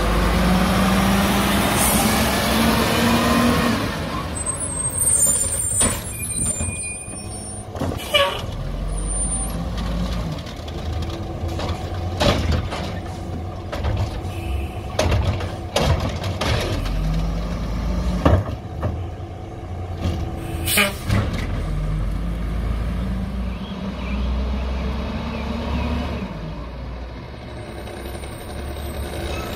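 Peterbilt 310 garbage truck with an Amrep automated side-loader arm working a curbside cart. The diesel engine revs up and down to drive the hydraulic arm, with a sharp knock every few seconds as the cart is lifted and emptied into the hopper. Air brake hisses are heard as well.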